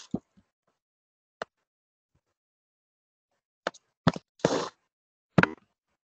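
A handful of sharp knocks and clicks at irregular moments, with a short rustling scrape about four and a half seconds in: handling noise close to the microphone.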